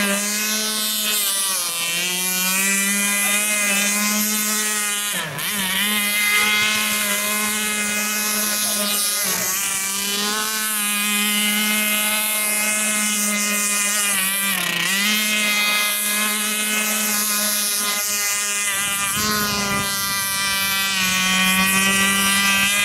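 Combustion-engined radio-control model speedboat running at high speed with a steady high engine whine. The pitch dips briefly several times and then climbs back.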